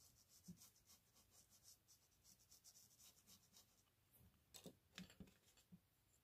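Faint, quick scratchy strokes of a fine brush working on drawing paper, followed about four and a half seconds in by a few soft clicks and taps.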